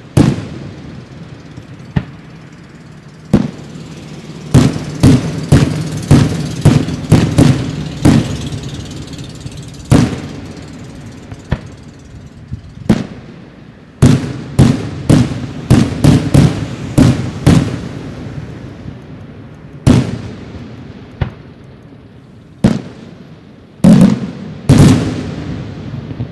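Bruscella Fireworks aerial shells bursting overhead: sharp booms, each trailing off, in irregular volleys. There are quick runs of reports about five to eight seconds in and again around fourteen to seventeen seconds, single booms between, and two heavy booms near the end.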